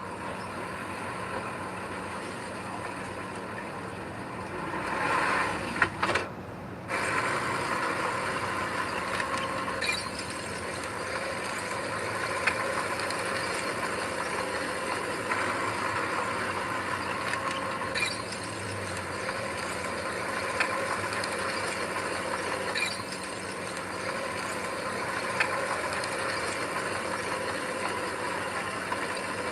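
Heavy earthmoving machinery running steadily, with scattered sharp metallic clicks and clanks; the sound cuts out briefly about six seconds in and then resumes.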